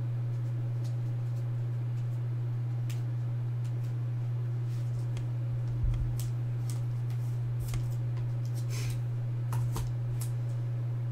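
Trading cards being handled: scattered faint clicks and slides of card edges and fingers on card stock, over a steady low hum.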